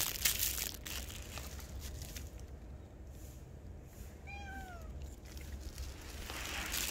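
A black stray cat meows once, a short call that falls in pitch, about four and a half seconds in. Rustling noise at the start and again near the end.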